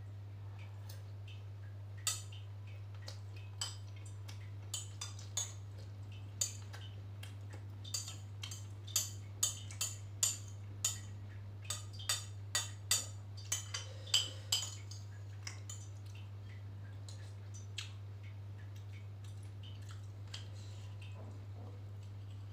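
Metal spoon clinking and scraping against a glass bowl during eating: scattered sharp clinks that come thick and fast in the middle, then thin out, over a steady low hum.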